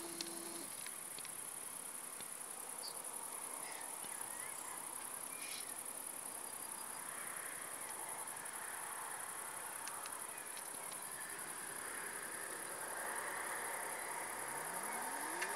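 Crickets trilling continuously in a high, steady shrill, with a fainter lower hiss swelling in after the middle and a low tone rising near the end.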